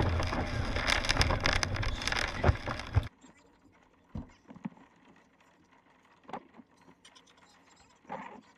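Strong wind buffeting an outdoor microphone in gusts, a dense rushing noise with crackles, which cuts off abruptly a little after three seconds. Then near-quiet inside a car, with a few scattered soft taps.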